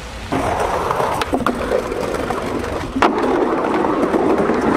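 Skateboard wheels rolling over a wooden deck, a steady rolling rumble that starts about a third of a second in. A few sharp clacks of the board cut through it, the loudest about three seconds in.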